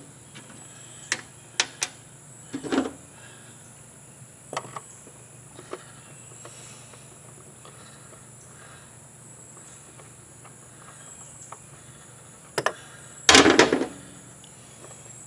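Scattered clicks and knocks of hand tools and screws being worked on an outboard motor, with a louder clatter about 13 seconds in. A steady high drone of crickets runs underneath.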